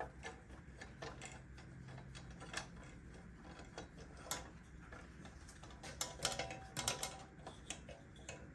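Faint, scattered small metallic clicks and light clatter of hand tools and saw parts being handled, with a quick cluster of clicks near the end.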